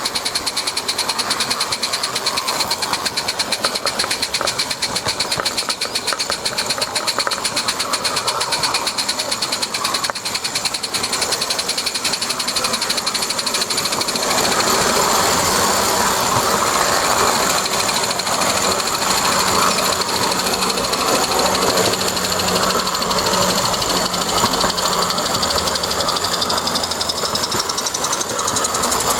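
A small-scale garden railway model train runs along its track with a fast, even mechanical clatter and a steady high whine. A fuller rumble joins about halfway through, and the whine rises in pitch near the end.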